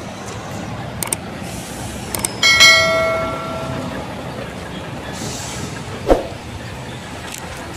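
Steady vehicle noise in a truck yard. About two and a half seconds in comes a sharp metallic clank that rings on and fades over about a second, with a few knocks around it.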